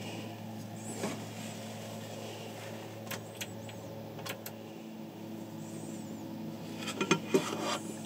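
Steady low electrical hum, with a few sharp clicks and, about seven seconds in, a brief louder cluster of clicks and rustling.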